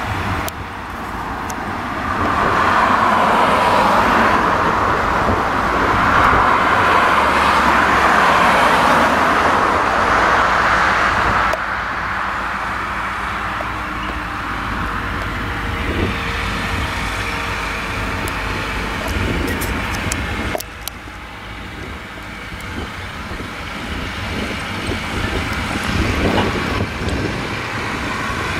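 A Fendt tractor's diesel engine runs as it passes pulling a rotary hay rake, with a loud rushing noise over it for most of the first ten seconds. The sound then drops suddenly to quieter farm machinery engine noise, which grows louder again toward the end.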